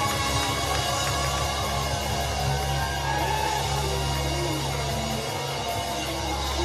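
Live worship band playing: a drum kit with cymbals keeps the beat over a steady bass and held chords.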